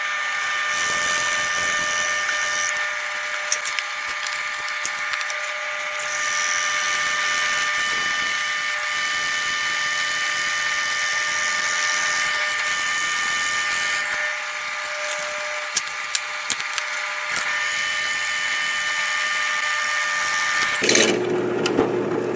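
Drill press boring a 1-inch hole in a glued-up wood block with a Forstner bit: a steady motor whine over the rasping hiss of the bit cutting and throwing chips. The sound changes and drops lower about a second before the end.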